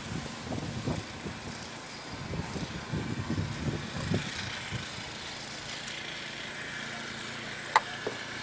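An engine running at a steady idle under wind hiss, with uneven low rumbles in the first few seconds and a single sharp click near the end.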